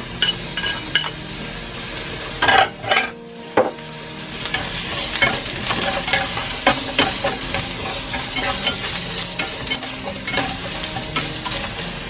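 Chopped onion sizzling in hot oil in a pan while a utensil stirs it, with frequent light scrapes and taps on the pan. A few louder knocks come about two and a half to three and a half seconds in.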